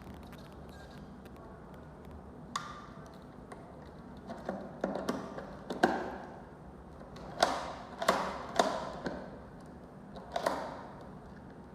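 Irregular taps and knocks of hard lock parts being handled and fitted during installation, about half a dozen, some with a brief ring.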